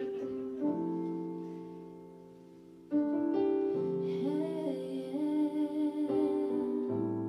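Slow R&B song intro played live: sustained keyboard chords that change every second or two, getting louder about three seconds in, with a wordless hummed vocal line wavering over them in the middle.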